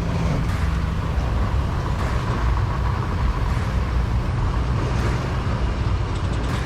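Cummins inline-six turbo diesel pickup engine pulling hard and steadily in low gear under a heavy towed load up a steep hill.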